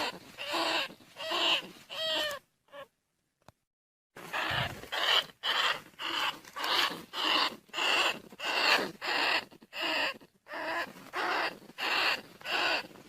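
Lure recording of field rat calls for rice-field rats and bandicoot rats: short squeaking calls repeated a little under twice a second. They break off for about a second and a half just after two seconds in, then resume.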